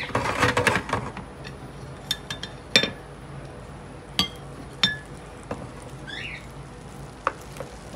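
Scattered sharp clinks and taps, some ringing briefly: metal kitchen tongs knocking against a glass mixing bowl.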